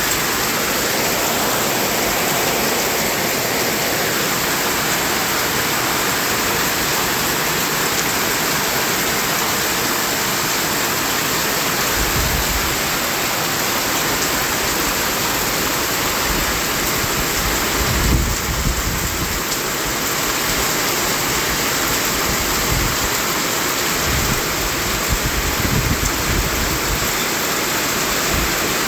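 Continuous white noise: a steady, even hiss, broken a few times by brief low rumbles, the loudest about two thirds of the way through.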